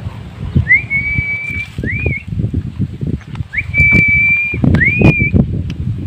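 A person whistling a two-part call twice: a long, steady note that starts with a quick rise, then a short upswept note. Low wind rumble and knocks on the microphone run underneath.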